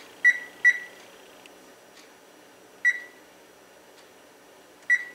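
Oven control-panel keypad on an electric range beeping as its buttons are pressed: four short, high beeps, two close together just after the start, one about three seconds in and one near the end, as the oven temperature is reset to 325 degrees.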